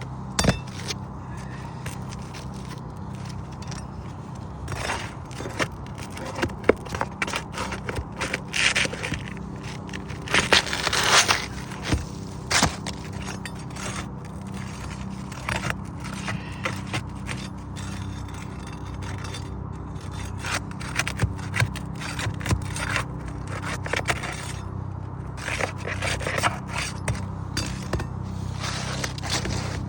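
Hand tools scraping and prying under asphalt roof shingles to work loose a damaged shingle and pull its nails: irregular scrapes and sharp clicks, over a steady low hum.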